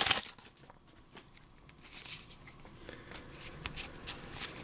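Foil booster-pack wrapper crinkling briefly at the start, then the quiet slide and tick of a stack of Pokémon trading cards being handled and shuffled.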